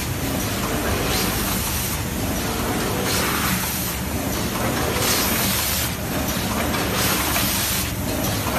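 Automatic potato chip packing machine running: a steady mechanical hum with a burst of hissing every one to two seconds as it cycles.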